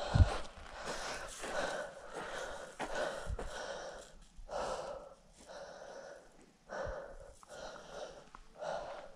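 A hiker breathing hard while walking, about one hissy breath a second, with three low thumps, the loudest right at the start.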